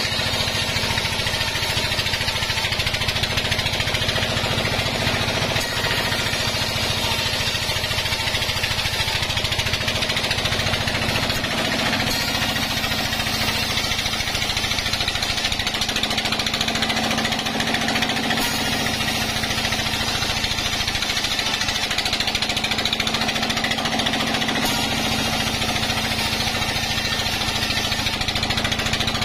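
Sawmill band saw running steadily while a squared log is fed through it, the motor noise and the blade's cutting noise going on without a break.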